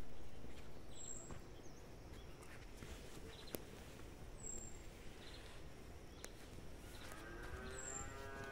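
Faint outdoor ambience: a bird gives a short, high, falling chirp three times, about every three and a half seconds, and near the end a cow starts a long moo.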